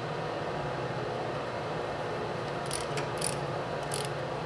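A wrench working a fitting on a snowplow's hydraulic pump: a few short, sharp metallic clicks from a bit under three seconds in, over a steady background hum.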